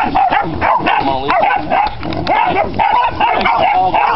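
Young hog dogs barking and yipping excitedly in a dense, continuous chorus as they bay a small pig.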